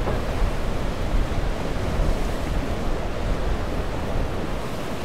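Surf washing and breaking against a rock jetty, with wind rumbling on the microphone.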